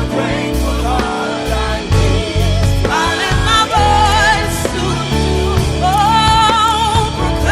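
Live gospel worship music: a band with strong bass notes under a singer's long, wavering held notes with vibrato.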